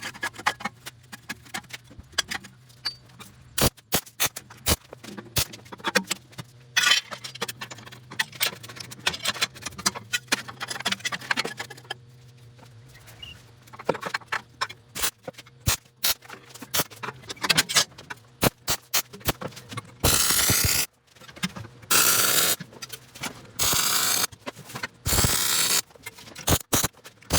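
Steel parts clinking and scraping as they are handled and set in place, then four short bursts of MIG welding crackle, each about a second long, near the end as pieces are tack-welded.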